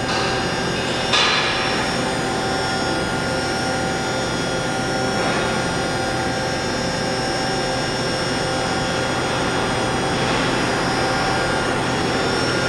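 Haas VM3 vertical machining center running, its spindle turning at about 7,500 RPM while the axes move: a steady machine hum with several steady whine tones over a hiss. A short louder hiss comes about a second in.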